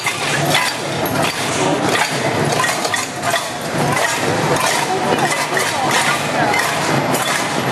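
Metal pots, pans and kitchen utensils clanking and banging together again and again, played by a marching group as percussion.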